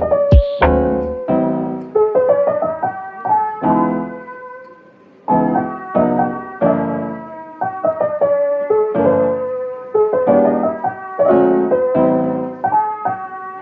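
Background piano music: a gentle run of piano chords and melody notes, with a short pause about five seconds in.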